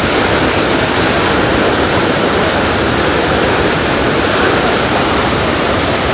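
The Rhine Falls' water thundering over the rocks, a loud, steady rush.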